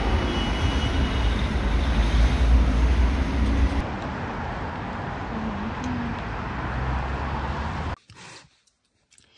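Outdoor street ambience: a steady low rumble and hiss of distant traffic. It cuts off abruptly about eight seconds in.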